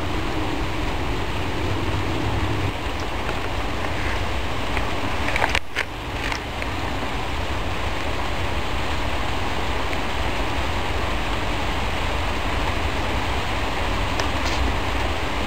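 Heavy rain falling steadily during a thunderstorm, an even rushing hiss with a brief drop-out about six seconds in.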